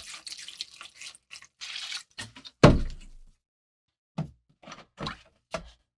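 Scraping and rubbing for the first two seconds, then one heavy thunk about two and a half seconds in, followed by four short, lighter knocks near the end.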